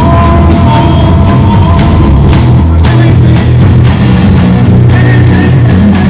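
Live rock music played loud: electric guitar holding sustained notes over a heavy low end, with drum hits keeping the beat and no singing.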